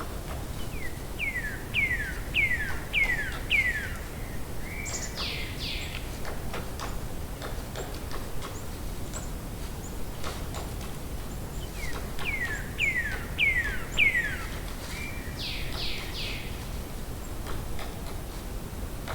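A songbird sings the same phrase twice, about eleven seconds apart: a run of five quick, falling slurred whistles followed by a few higher notes. A steady low outdoor background noise runs underneath.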